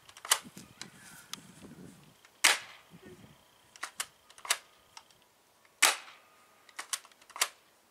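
Double Eagle airsoft shotgun, rated about 350 FPS, fired twice about three seconds apart, each a sharp crack. Smaller clicks and knocks come between the shots.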